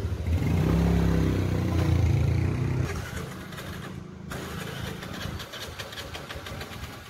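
An engine running. It is louder and shifts in pitch for the first three seconds, then settles into a steadier, lower running sound with a rapid regular pulse after a break about four seconds in.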